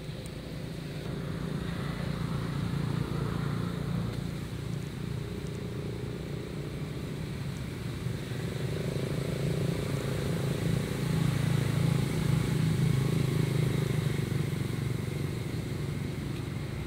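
Motor vehicle traffic: a steady low engine hum that swells in the second half and then eases off.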